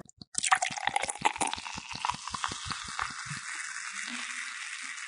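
Beer poured into a glass: a quick run of splashing gulps for about three seconds, then the foam fizzing steadily.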